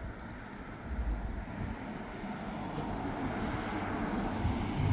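Distant rumble of an airliner's engines, growing steadily louder as the aircraft approaches.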